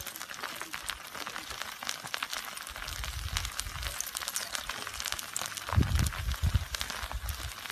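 Crackling and fine clicking of a pāhoehoe lava toe's crust cracking as the molten lava oozes forward, with low buffeting about three and six seconds in.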